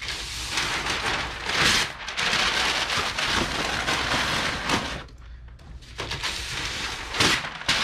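Brown kraft packing paper being crumpled and stuffed into a cardboard shipping box, a dense crinkling that pauses briefly about five seconds in and then starts again.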